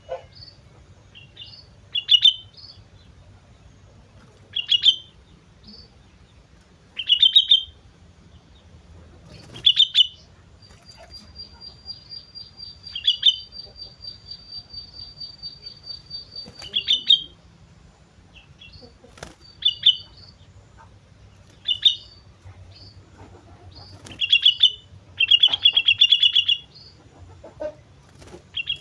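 Sooty-headed bulbul (kutilang) singing: short, loud, bubbly phrases repeated every two to three seconds, with softer high notes in between. A long, even, high trill runs for about six seconds in the middle.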